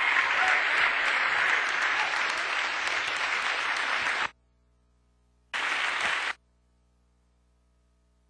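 Audience applauding steadily; the applause cuts off suddenly about four seconds in, comes back for a burst of under a second, then stops.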